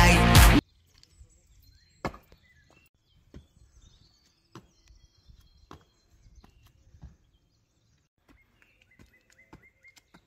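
Music cuts off abruptly within the first second. Then come footsteps of sneakers on stone steps, separate sharp steps about one a second, the loudest about two seconds in, with birds chirping faintly.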